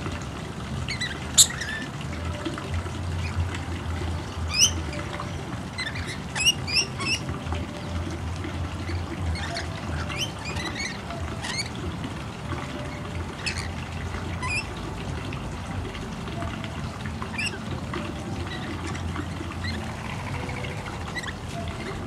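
Rainbow lorikeets feeding close by, giving short shrill chirps and squawks now and then, the loudest about a second and a half in and a cluster between about four and seven seconds in, over a steady low rumble.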